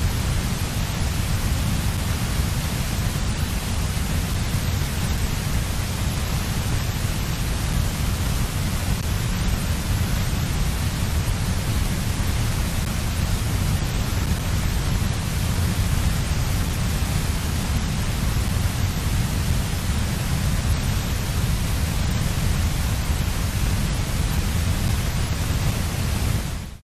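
Steady wind noise on the nest camera's outdoor microphone: a low, fluttering rumble with an even hiss over it, with no calls or other distinct sounds. It cuts off suddenly near the end.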